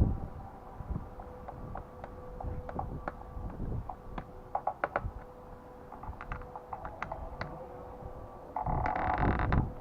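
Scattered light clicks and ticks of hand work on the screen bolts of a motorcycle fairing, over a faint steady hum, with a louder creak near the end.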